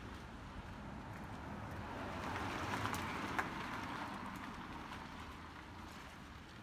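An SUV passing close by on wet, slushy asphalt: the hiss of its tyres on the wet road swells as it comes alongside and fades as it drives away. A single sharp click about halfway through.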